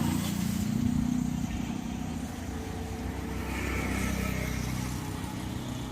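A car engine running, louder at the start and slowly fading.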